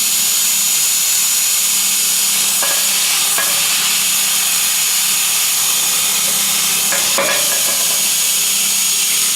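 Steady loud hiss with a thin high whine over it from the CNC tube-cutting machine at work, with a few light knocks about three seconds in and again near seven seconds.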